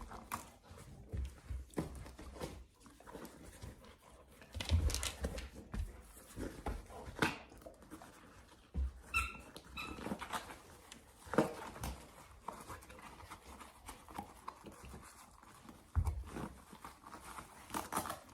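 Dog moving about in a small room, with scattered knocks and rustles and one short high squeak about nine seconds in.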